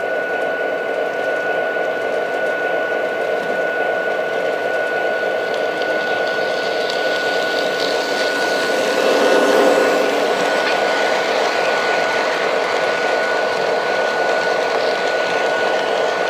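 O scale model train running on the layout's track: a steady whir and rumble of motor and wheels with a steady high tone over it, swelling briefly about nine seconds in.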